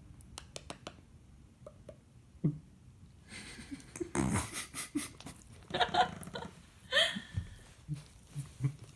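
Dachshund puppy licking a man's face: quick wet licking and smacking clicks, then a run of breathy, wheezy sounds and short laughs from about a third of the way in.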